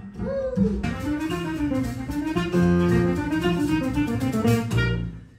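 Live jazz: a clarinet playing a melody over plucked double bass and piano. The music fades and breaks off just before the end.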